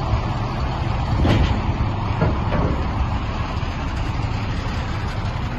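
Diesel engine of an International 7400 dump truck idling steadily, a constant low rumble, with two brief rushes of noise about a second and two and a half seconds in.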